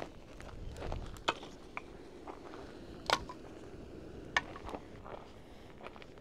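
Wood campfire crackling: a handful of sharp, irregular pops and snaps from the burning wood.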